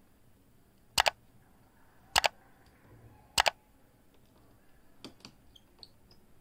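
Three sharp mouse-click sound effects, each a quick double click, evenly spaced just over a second apart, as an animated overlay clicks like, subscribe and the notification bell. Fainter small ticks follow near the end.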